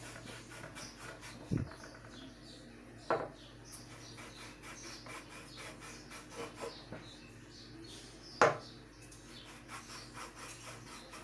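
A stainless-steel cup pressed through rolled dough onto a wooden board to cut out rounds: three dull knocks as it meets the board, the last the loudest, with soft rubbing and scraping of the cup twisting in the dough between them.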